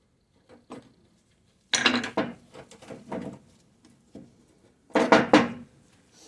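Metal brake parts and tools knocking and clattering as they are handled, in two louder bursts about two and five seconds in, with a few lighter knocks between.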